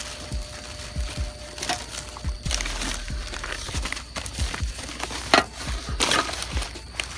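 Trash being rummaged through in a dumpster: paper and cardboard crinkling and rustling, with frequent dull knocks from handling, and a louder rustle about five seconds in.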